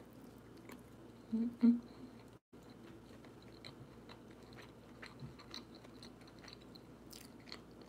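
A person biting and chewing a soft homemade avocado cheeseburger, with many small wet mouth clicks. Two short, louder low sounds come about a second and a half in.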